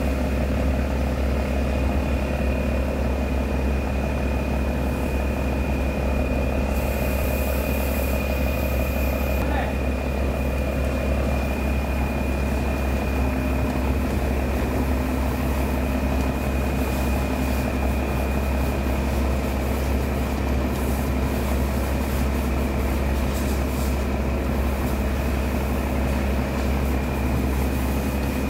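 Fishing boat's engine running steadily, a low even hum with a thin steady whine above it, while the net is hauled aboard.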